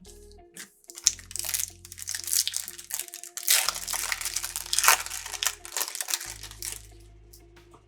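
Crinkling and rustling of a foil trading-card pack wrapper being torn open and handled, in quick irregular crackles for most of the stretch.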